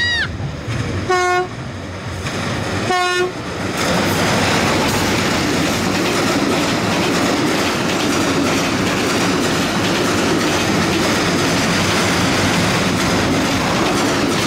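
Two short blasts of a Bangladesh Railway broad-gauge diesel locomotive's horn, about two seconds apart. Then comes the loud, steady rumble and clickety-clack of the passenger coaches' wheels as the train passes close by on a steel girder bridge.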